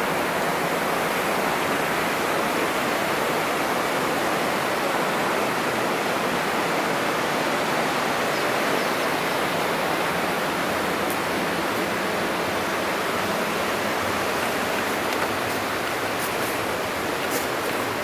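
Steady rush of falling water in a rocky mountain stream, an even unbroken roar of white water.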